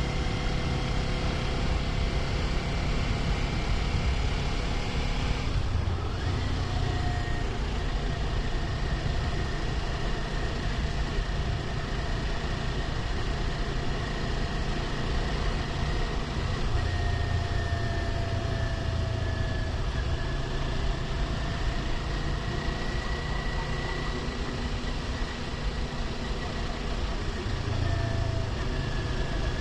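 Kawasaki Ninja 400 parallel-twin engine running at a steady cruise under wind and road noise, heard from the rider's position. The engine note breaks briefly about five seconds in, then settles and drifts gently in pitch.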